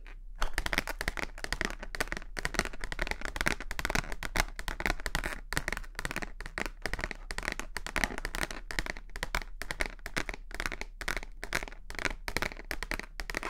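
Plastic multi-pocket file case handled close to the microphone: a dense, irregular run of rapid crackles and clicks as the stiff plastic is gripped and flexed.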